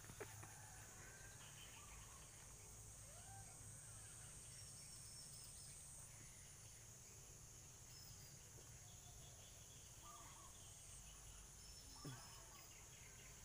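Near silence: a faint, steady high insect drone with scattered faint bird calls. There is one brief faint sound about twelve seconds in.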